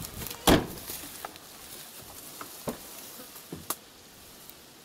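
A few scattered knocks and clunks of things being handled and pulled out of a car's back seat, the loudest a single sharp knock about half a second in, with fainter ones spread through the rest.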